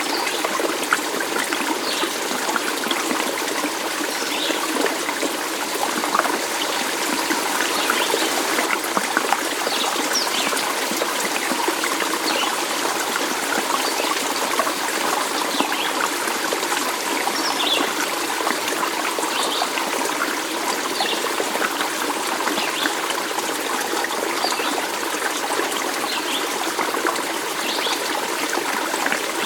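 A stream of water running and trickling steadily, with many small gurgles scattered through it.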